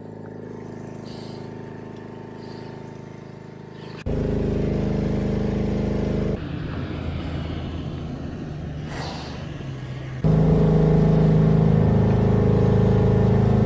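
A vehicle engine idling, a steady hum that jumps louder about 4 seconds in and again about 10 seconds in.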